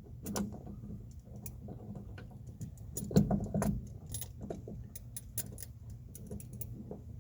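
Light metallic clicks and clinks, irregular and many, as a small pick and a striker pin are worked against the door striker plate of a squarebody truck, with a low steady hum underneath.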